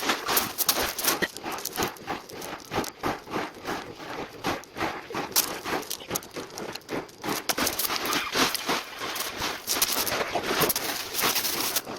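Rapid, irregular clicking and clattering, many small knocks a second.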